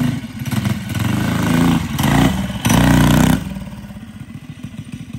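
Stage 4 Predator 212cc single-cylinder four-stroke engine on a Baja Warrior mini bike, revving in uneven surges as it is ridden. The loudest rev comes about three seconds in, then it drops back to a lower, choppy running, on a carburettor the rider says is badly messed up.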